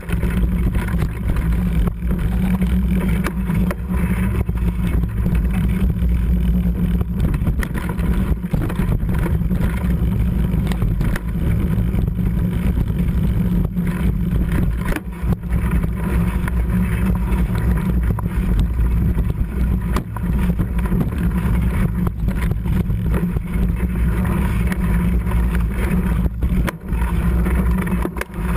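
Mountain bike rolling fast over a rough trail: a steady, loud rumble of wind buffeting the microphone together with tyre noise, with a few brief dips.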